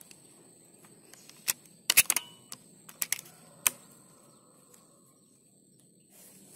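Rifle shot about two seconds in: a sharp click, then a tight cluster of cracks, the loudest sound, followed by a few lighter sharp clicks over the next two seconds.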